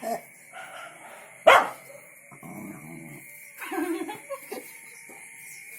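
A shepherd dog barking happily on hearing other dogs: one loud, sharp bark about a second and a half in, followed by quieter low vocal sounds.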